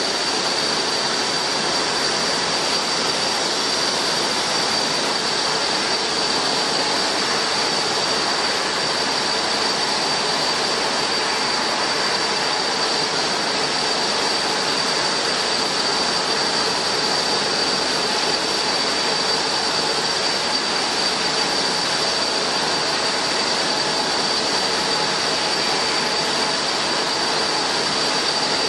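Jet airliner engines running steadily: a broad, even rush with a constant high whine over it, neither rising nor fading.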